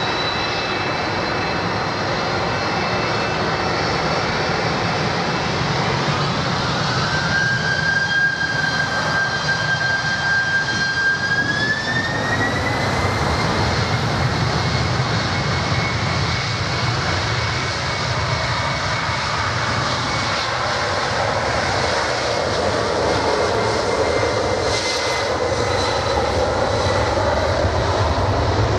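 Jet airliner engines running steadily, with a high whine that climbs in pitch a few seconds in and then holds level over a low rumble.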